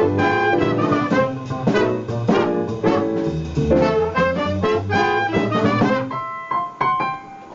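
Live swing jazz band with brass horns playing. Dense ensemble playing thins to a few held notes about six seconds in, as the tune nears its close.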